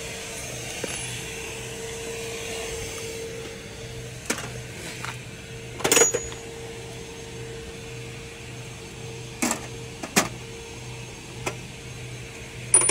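A steady mechanical hum with a faint low pulsing beneath it, broken by a few short clicks and knocks, the loudest about six seconds in and two more around ten seconds.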